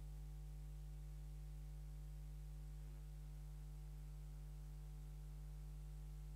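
Steady low electrical hum with a faint buzz of higher overtones, unchanging throughout, with nothing else audible.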